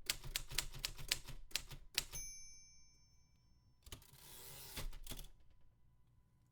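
Typewriter keys clacking in a rapid run of strokes. About two seconds in, the carriage bell dings and rings on. It is followed by a rushing, sliding sound that fits the carriage being returned.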